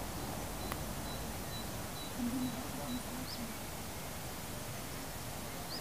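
Steady hiss of a camcorder recording outdoors, with a sharp click about a second in and a short run of low notes about halfway through.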